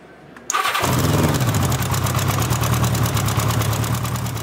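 Motorcycle engine started on its freshly installed battery: after a brief click it catches about half a second in and settles into a steady run with an even, rapid exhaust pulse.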